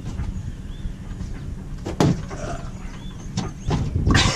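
Wooden wall cabinet being handled and shifted: a sharp knock about two seconds in, a couple of faint squeaks, then several lighter knocks near the end, over a steady low rumble.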